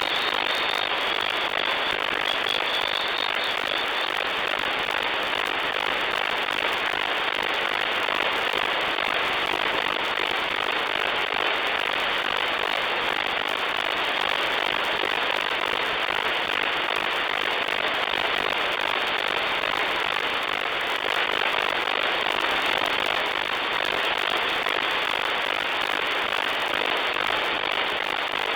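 Shortwave radio static from an SDR receiver on the 40-metre amateur band with no station transmitting: a steady, even hiss with crackle. A faint thin whistle sits in the noise for the first few seconds.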